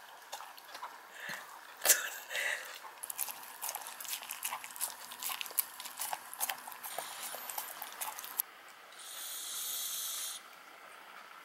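A small dog and a tabby kitten eating from bowls: a run of quick wet clicks and snaps of lapping and chewing, with one sharp knock about two seconds in. Near the end comes a steady hiss lasting about a second.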